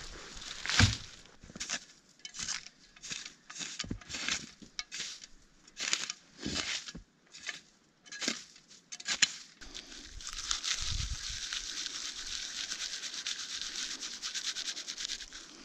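A folding shovel scraping and scooping snow in a run of separate crunching strokes, then about five seconds of steady rubbing as hands are rubbed together.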